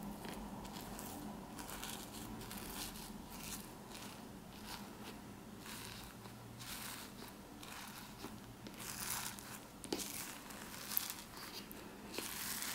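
Fluffy slime being handled, stretched and pulled apart by hand, giving a run of irregular short crackles. They grow busier and louder near the end, with one sharp snap about eleven seconds in.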